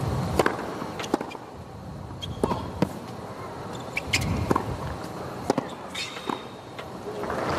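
Tennis ball struck by rackets and bouncing on a hard court during a baseline rally: a string of sharp pops at irregular spacing over a low crowd murmur.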